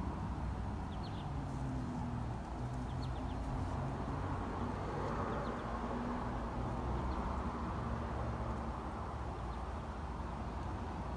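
Outdoor ambience: a steady low rumble, with a few faint, short, high bird chirps in the first few seconds.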